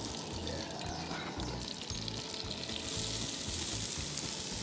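Shredded hash browns hitting hot oil in a cast-iron skillet, starting to sizzle a bit over halfway through, over background music with a steady bass beat.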